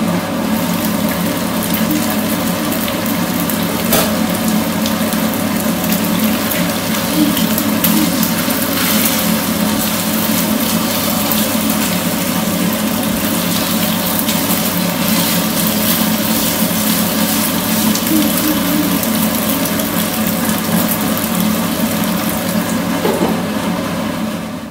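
Beef entrecôte slices frying in oil in a nonstick frying pan over a raised flame: a steady sizzle with fine crackling.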